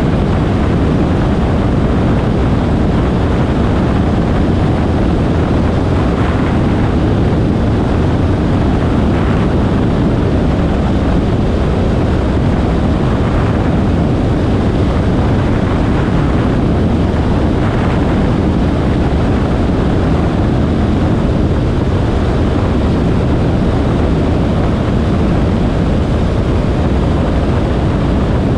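Steady, loud rush of airflow over the microphone of a camera mounted outside the cockpit of an engineless Schweizer 1-23 sailplane in gliding flight.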